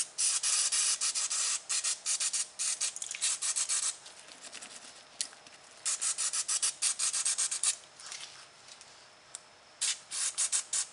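Aerosol can of Break-Free CLP spraying lubricant onto small revolver screws, hissing in quick short spurts that come in three runs with brief pauses between.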